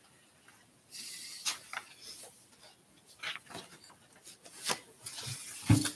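Sheets of paper rustling and being shuffled, with scattered light taps and a low thump near the end.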